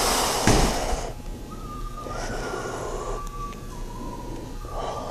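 Heavy, Bane-style breathing through a half-face respirator: one loud breath at the start, then quieter breaths. A thin whistling tone steps slowly down in pitch through the rest.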